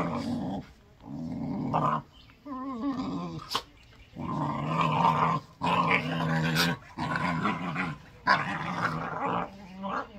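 Pit bulls play-growling while they wrestle: a string of low, rough growls about a second long each, with short breaks between them.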